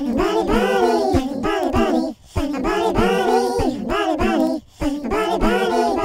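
Background music: a song with singing over a steady beat.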